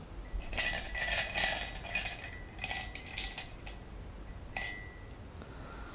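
Chaos tokens clinking and rattling against a ceramic mug as a hand rummages in it to draw one for a skill test. A sharper clink comes about four and a half seconds in, and the mug rings briefly after it.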